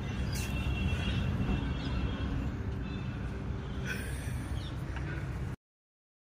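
Steady low rumble of outdoor background noise with a few faint bird chirps; the sound cuts off abruptly about five and a half seconds in.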